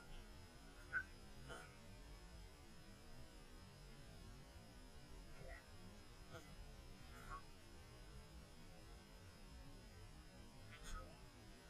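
Near silence: a faint low hum with a few scattered faint ticks.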